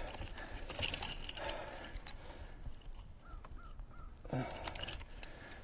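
Faint, scattered clicks and rustles of hook cutters working at a lure's treble hooks in a netted muskie's mouth, with three short high squeaks about three seconds in.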